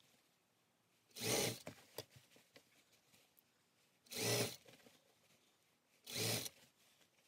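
Juki industrial sewing machine stitching a sleeve seam in three short runs of about half a second each, with pauses between them while the fabric is guided.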